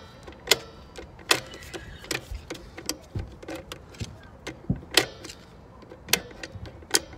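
Star-wheel adjuster of a Dexter 12-inch electric trailer drum brake being turned with a screwdriver through the backing-plate adjusting hole, clicking over one notch at a time: a dozen or so sharp clicks at uneven spacing. Each click draws the brake shoes closer to the drum as the brake is adjusted.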